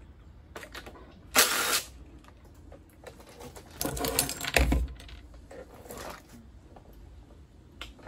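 Cordless impact driver with a socket spinning off the 10 mm nuts that hold the carburetor to a small mower engine. It runs in two short bursts, about a second and a half in and again around four seconds in, with small metal clicks between.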